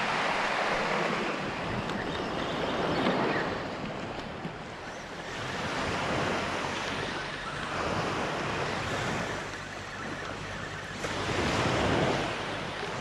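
Small surf waves breaking and washing up onto a sandy beach, the rush of water swelling and fading every two to three seconds.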